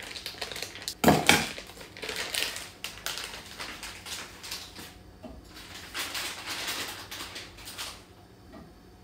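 Kitchen handling noises: a plastic zip-top bag of sausages crinkling and rustling, with a sharp knock about a second in, then scattered clatter of pans and utensils at a gas stove.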